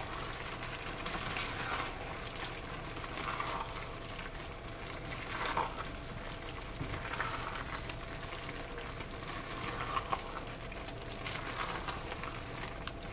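Pan of vegetables cooking over high heat in milk and ghee, with a spoon stirring through them in recurring strokes about every two seconds.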